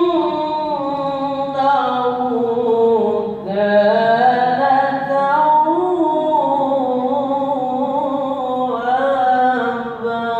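A single voice in melodic Quran recitation (tilawah), drawing out a long ornamented phrase with slow rising and falling pitch glides and a brief break about three and a half seconds in.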